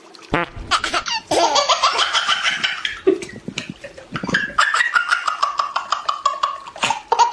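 Hearty laughter in rapid bursts, starting about a third of a second in, with a long run of falling-pitch laughs in the second half.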